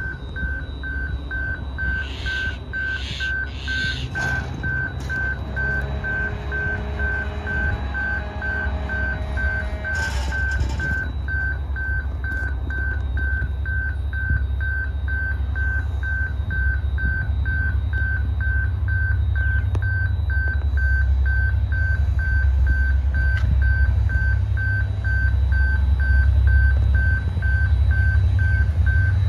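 Electronic warning beeper sounding a high beep several times a second, evenly and without a break, over a low rumble that grows steadily louder as a pair of diesel-electric locomotives approaches.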